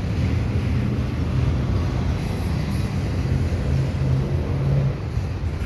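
Double-stack container well cars of a freight train rolling past close by: a steady low rumble of steel wheels on the rails.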